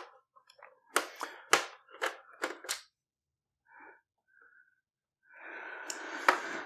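Sharp small clicks and taps, about six in two seconds, from a screwdriver and screws being handled against a PlayStation 4's plastic case. Near the end there is a short rustle and one more click.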